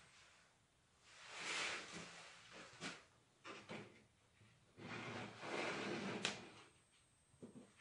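Quiet handling on a plywood workbench: a styrene plastic kit panel and small tools sliding and rustling, with a few light clicks and taps.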